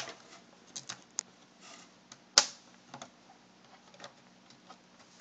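Small plastic clicks and taps as a laptop's webcam module and its cable are pressed into place at the top of the screen lid, irregular, with one sharper snap about two and a half seconds in.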